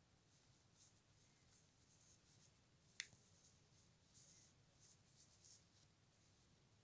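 Near silence: a finger stroking a budgerigar's feathers gives a faint scratchy rustling, with one soft click about three seconds in.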